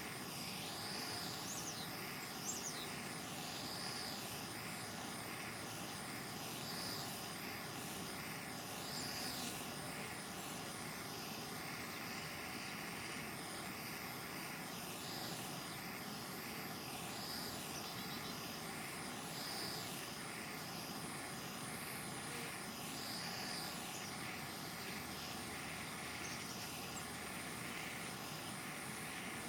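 Handheld propane torch burning steadily as it heats an oxalic acid vaporizer, a constant hissing roar. A short high chirp repeats every two to three seconds over it.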